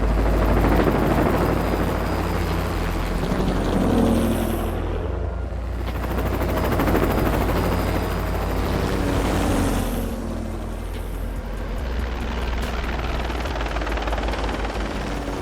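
Aircraft engine roar from a film soundtrack, swelling and fading three times over a steady deep rumble.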